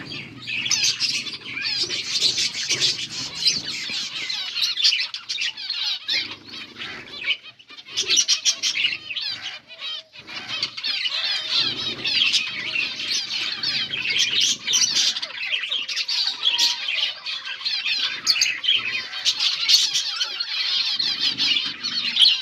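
Many small finches chirping rapidly and overlapping, almost without pause, with short clicks and low fluttering rustles among the calls.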